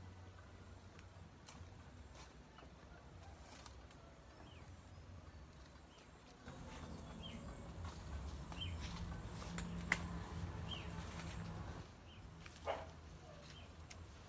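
Birds chirping faintly outdoors in short, scattered calls. A low hum comes in about six seconds in and drops away near twelve seconds, with a sharp click near ten seconds.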